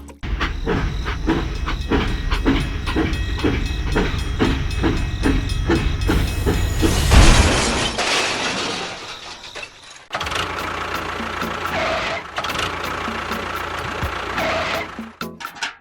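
Small motor-driven model construction machine running, with a rhythmic knocking about twice a second. A loud rushing burst comes about seven seconds in, and after an abrupt cut a steadier running sound follows.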